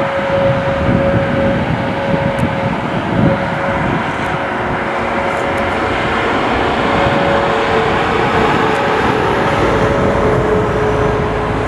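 Airbus A321neo's twin Pratt & Whitney geared turbofans running as the airliner taxis: a steady jet rumble with a high engine whine that shifts slightly lower in pitch in the second half.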